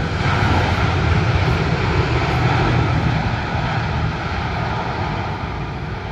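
Cathay Dragon Airbus A330-300's Rolls-Royce Trent 700 jet engines at takeoff thrust during the takeoff roll: a loud, steady roar with a deep rumble, slowly fading as the jet speeds away.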